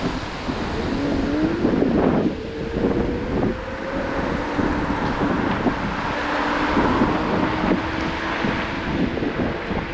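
Riding noise on a Lime electric scooter: wind buffeting the microphone and rumbling road noise, with a motor whine that rises in pitch over the first few seconds and then holds steady.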